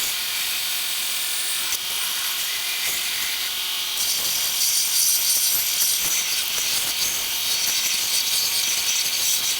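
Electric belt sander running with a wooden spatula blank pressed against the belt, a steady hissing grind that grows louder about four seconds in as the wood bears harder on the belt.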